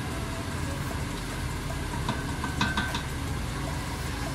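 Wooden spoon stirring a boiling tomato base in a steel pot, with a few light knocks of the spoon on the pot about two to three seconds in, over a steady hum.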